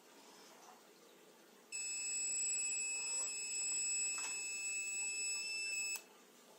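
Radiation detector's buzzer sounding one steady, high-pitched electrical tone for about four seconds. It starts abruptly and cuts off with a click. This is the version 0.9 fault in which the buzzer has trouble turning off.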